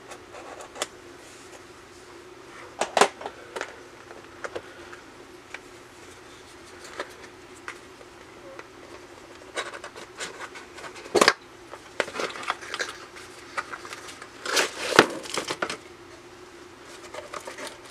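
A knife and hands working open a taped cardboard-and-plastic retail package: scattered scrapes and clicks, with a sharp click about eleven seconds in and a cluster of scraping near the end.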